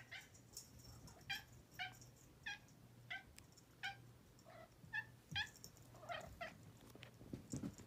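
Orange tabby cat giving a string of short, faint meows, about one every half second.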